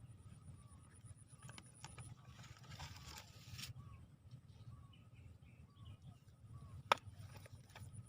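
Faint bird chirps over a low steady rumble, with a brief rustle about two and a half seconds in and one sharp click near the end.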